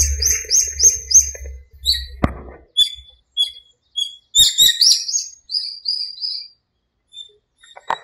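Small songbirds chirping in a city park at dawn: a quick run of short rising notes, a few a second, then scattered chirps, another run about halfway, and three slower notes after it. A sharp click sounds about two seconds in, and a low hum fades out in the first couple of seconds.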